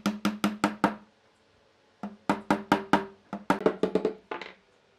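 Mallet knocking thin wooden strips into the notches of a wooden frame, seating them. There are two runs of quick knocks, about five a second, with a pause of about a second between them, and each knock has a brief ring.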